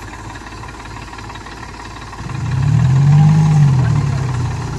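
Eicher tractor's diesel engine running at idle, then revved up once about two seconds in and let back down, the pitch rising and falling, while the tractor sits bogged in deep mud.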